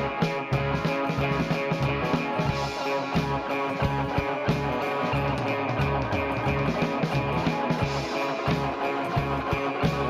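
Rock music played by a band: guitar over bass and drums, with a steady beat.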